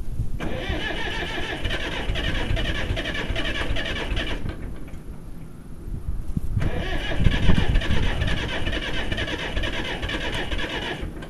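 Electric starter cranking the cold diesel engine of a 1974 International 574 tractor at about freezing, in two attempts of roughly four seconds each, each stopping abruptly.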